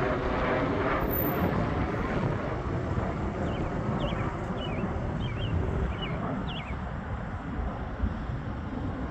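Twin-engine business jet climbing away after takeoff, its engine noise steady and slowly fading as it recedes. A few short high chirps sound between about three and seven seconds in.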